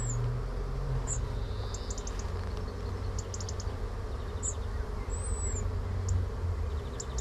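Honeybees buzzing steadily around an open-air hive. A small bird's high chirps and quick trills come over it several times.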